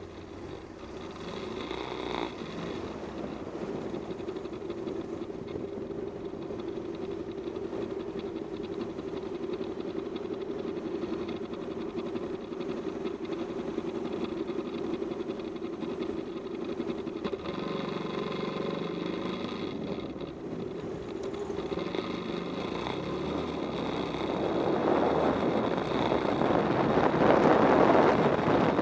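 Bajaj Pulsar's single-cylinder engine running steadily at low speed in slow traffic. From about two-thirds of the way in, wind noise on the microphone rises and grows loud as the motorcycle picks up speed on open road.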